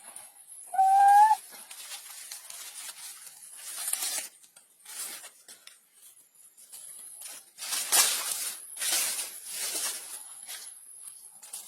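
A baby monkey gives one short, slightly rising cry about a second in, followed by several scratchy rustling and rubbing bursts.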